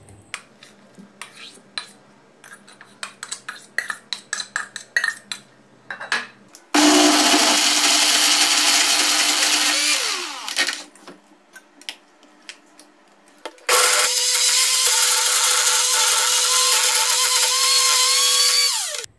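A spoon taps and scrapes against a steel mixer-grinder jar as cooked mung beans are scooped in. Then the electric mixer grinder runs twice, grinding the beans to a smooth paste: first for about three seconds, then after a pause for about five seconds, its pitch falling as it spins down at the end.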